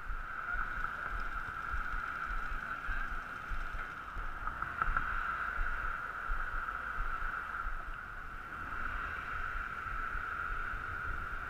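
Wind on the microphone: a steady hiss with uneven low rumbling underneath.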